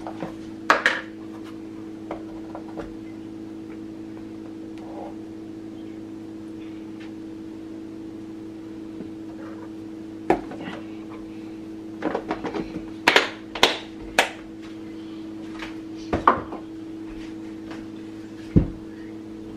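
Kitchen handling of a plastic measuring cup and plastic flour container against a ceramic mixing bowl: scattered sharp clicks and knocks, a few near the start, a quick cluster past the middle and one duller thud near the end, over a steady low hum.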